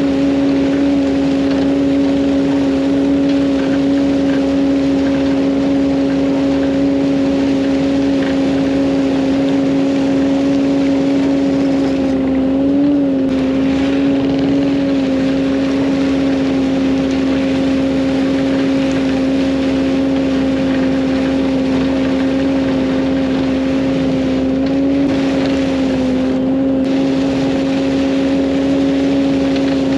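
A heavy machine's engine running at a steady high throttle with a constant whine. The pitch dips briefly twice, about a third of the way in and again most of the way through.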